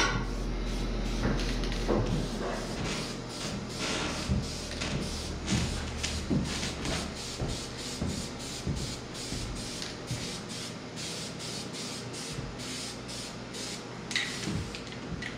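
Aerosol spray-paint can being sprayed and shaken: a hiss of spray with the mixing ball rattling in a steady rhythm of about three clicks a second.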